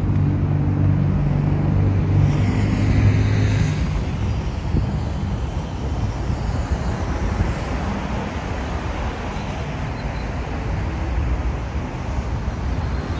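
Road traffic noise: a nearby engine hums steadily for the first few seconds, then fades into the even rush of cars passing on the road.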